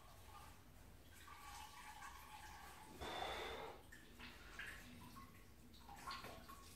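Wort draining and splashing back into a brewing boiler from a lifted brew-in-a-bag grain bag of wet mashed malt, faint, with a louder splash about three seconds in.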